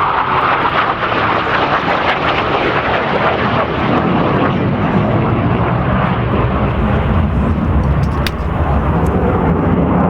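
Hawker Hunter Mk 58's Rolls-Royce Avon turbojet in a display flypast: loud, continuous jet noise that starts as a higher rush and turns into a deep low rumble about four seconds in.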